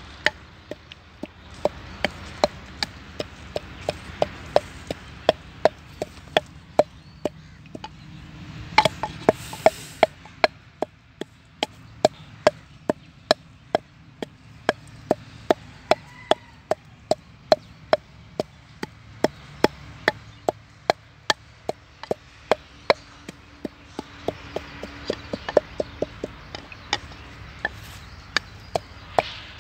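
A blade chopping steadily at cauliflower plants, about two sharp strokes a second.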